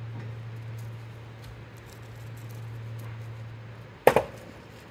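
A steady low hum, then about four seconds in a sharp double thud as a person drops down from a vehicle's rear tyre onto dirt ground.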